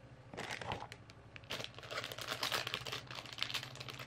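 Hands handling stationery: crinkling and rustling with small clicks, in two spells, the longer one in the middle. A steady low hum runs underneath.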